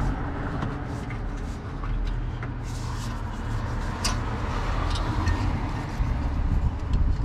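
Steady low rumble of distant road traffic, with a few faint clicks as a hand works the oxygen sensor wiring connector.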